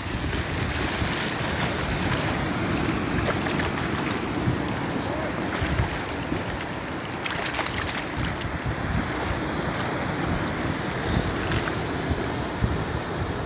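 Wind buffeting the microphone over waves washing on a beach, a steady rushing noise.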